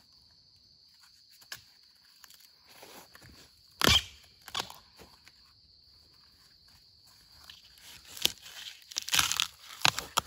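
Footsteps and rustling in dry bamboo leaf litter while bamboo shoots are gathered by hand, with one sharp crack about four seconds in and a few smaller crunches near the end.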